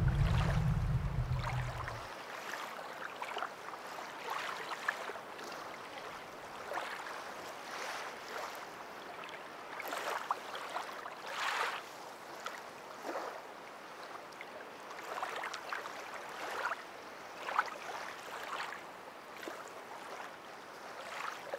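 Small sea waves lapping and splashing at the shore, an uneven wash of water with irregular swells. Background music fades out in the first two seconds.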